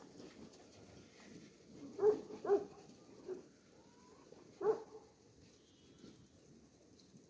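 A dog barking: a few short barks, two in quick succession about two seconds in, a faint one after, and another near five seconds.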